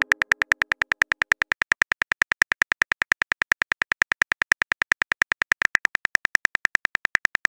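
Phone-keyboard typing sound effect: a rapid, even run of short clicks, about ten a second, as a text message is typed out.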